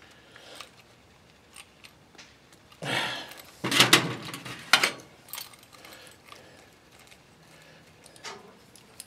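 Small metal clicks and taps of a screwdriver and carburetor parts being handled at a workbench, with a louder stretch of rustling and knocking from about three to five seconds in as a hand passes close to the microphone.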